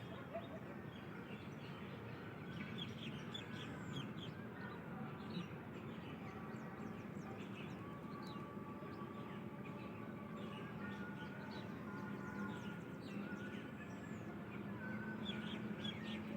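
Small birds chirping, many short high chirps and calls throughout, over a steady low background hum.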